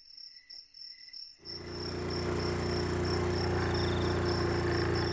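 Crickets chirping in a steady pulsing trill. About a second and a half in, a small motorcycle engine comes in, rises over half a second and then runs steadily, louder than the crickets.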